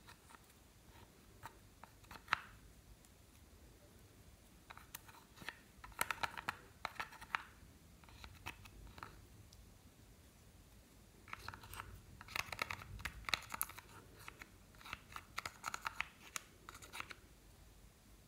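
Plastic spatula scraping pressed eyeshadow out of a palette pan and crumbling it on a glass dish: dry scratching and crunchy clicks. A single sharp click about two seconds in, then two busy spells, one about five to seven seconds in and a longer one from about eleven to seventeen seconds.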